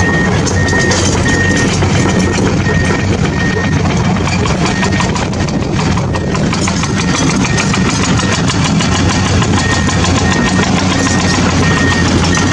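An engine running steadily, with a high beep pulsing about twice a second like a reversing alarm; the beeping stops for a few seconds midway and resumes near the end.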